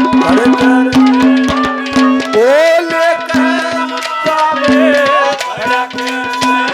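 Live Haryanvi ragni music: a held melodic note over quick, busy hand-drum strokes, with a rising melodic line about two and a half seconds in.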